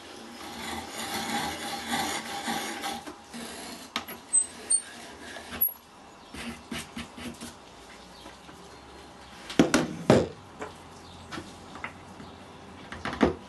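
Hand brace turning an auger bit into a wooden block, a steady scraping cut for about three seconds. After that come scattered light clicks and wooden knocks, the two loudest about ten seconds in, as a wooden dowel is fitted into the bored hole.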